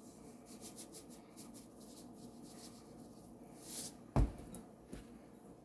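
Faint kitchen handling sounds while dumpling ingredients (flour, cornmeal, salt) are put together in a bowl: light taps and rustles, a brief swish, then a dull thump a little past four seconds and a smaller knock just after.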